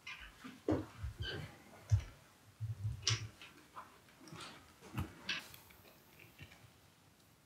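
Irregular soft clicks and light knocks, about a dozen, scattered through a quiet room, with a few dull low thumps.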